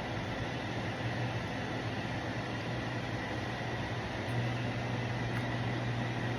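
Steady low hum under an even hiss: constant room background noise with no distinct events.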